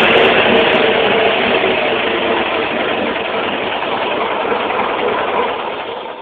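1920s Scripps six-cylinder flathead engine running steadily, freshly revived after years without running. The sound grows gradually quieter toward the end.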